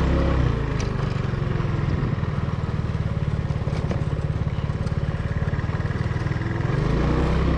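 Vehicle engine and road noise heard from inside the cab while driving, a steady low drone whose pitch falls a little after the start and rises again near the end.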